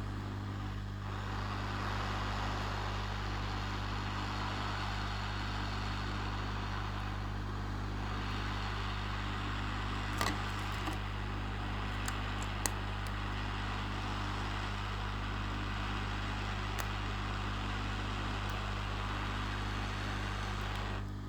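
Hot air rework station blowing a steady hiss of air onto the circuit board at high airflow to melt the LCD's solder, over a steady low electrical hum. A few light clicks about ten to twelve seconds in.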